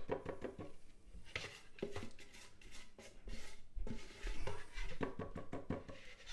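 Silicone spatula scraping thick cream from a plastic mixing bowl and knocking it off into a piping bag, an irregular run of soft scrapes and light knocks.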